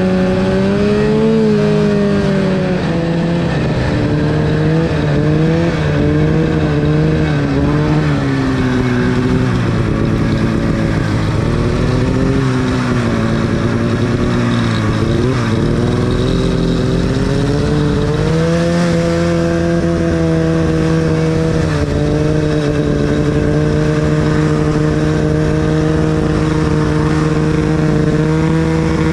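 Arctic Cat snowmobile's two-stroke engine under way. Its pitch rises and falls with the throttle through the first half, then holds at a steady cruise from a little past halfway.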